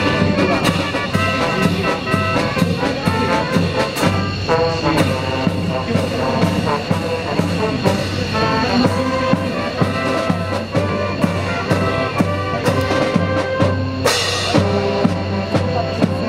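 Military marching band playing live while marching: saxophones, trumpets, trombones and sousaphone over a steady beat from bass drum and snare. A short burst of noise cuts through about two seconds before the end.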